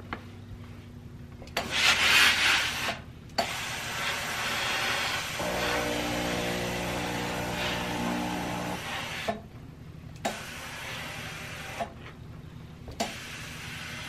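Steam-generator iron pressing fusible interfacing onto fabric: a loud burst of hissing about two seconds in, then a steady hiss as the iron moves over the cloth, with a low hum joining it for a few seconds in the middle. A few sharp clicks near the end.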